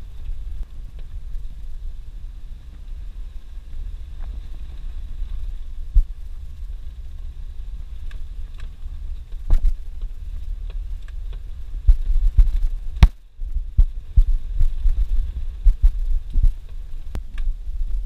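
Suzuki Jimny running in low gear, heard from inside the cabin as it drives over a rutted dirt road: a steady low rumble with sharp knocks and rattles as the vehicle jolts over bumps, more frequent in the second half.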